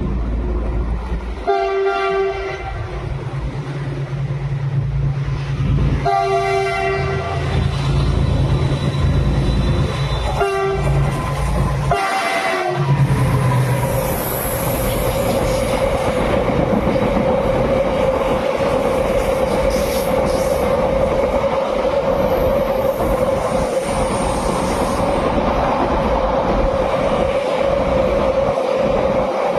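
WDG-4G diesel locomotive sounding its horn four times, in blasts of about one to one and a half seconds, over the low drone of its engine. From about halfway through, the drone gives way to a steady rolling rumble of the train's wheels on the rails.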